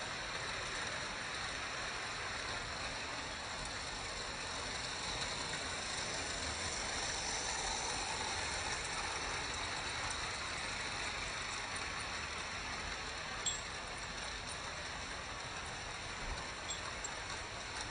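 Vintage Märklin model trains running on metal M-track: a steady rushing rattle of wheels on the track, with a sharp click about two-thirds of the way in.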